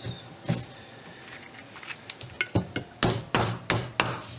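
Metal lid of a can of wood stain being knocked down shut by hand: a series of sharp knocks that come quicker and louder in the second half.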